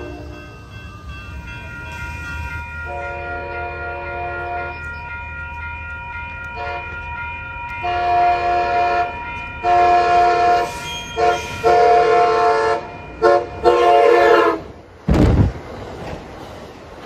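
Amtrak Pacific Surfliner train sounding its multi-note horn in a run of long and short blasts as it approaches and runs through the station, with grade-crossing bells ringing. About 15 seconds in the train reaches the microphone with a loud rush of wind as the bilevel cars pass.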